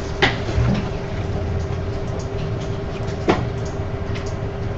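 Steady room hum over a hiss of background noise, with two short clicks: one just after the start and one a little past three seconds in.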